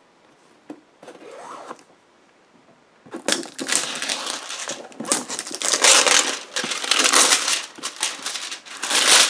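Thick cellophane shrink-wrap being torn and crinkled off a board game box. After a soft rustle near the start, loud, dense crackling begins about three seconds in.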